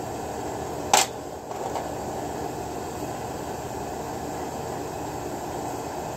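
Rusted old chainsaw crankshaft bearings turned by hand, running rough, over a steady fan-like whirr, with one sharp click about a second in.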